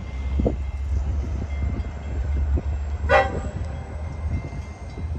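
Train running with a steady low rumble, and one short horn toot about three seconds in.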